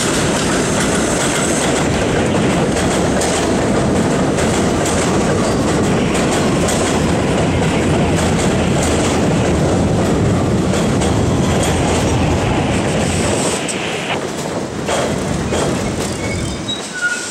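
New York City Subway Kawasaki R68A train pulling into an elevated station, its wheels running loudly over the rails as it passes close by and slows. The noise eases about fourteen seconds in as it comes to its stop, with a few short, high wheel squeals near the end.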